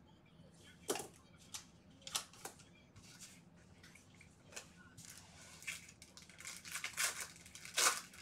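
Trading cards being handled and a foil card-pack wrapper crinkling and tearing open: a run of short, irregular crackles and rustles, loudest near the end.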